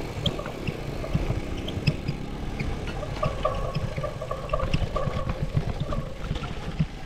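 Riding noise from a road bike on the move: a steady low rumble of wind and road with many small knocks and rattles. A faint steady tone runs from about three to six seconds in.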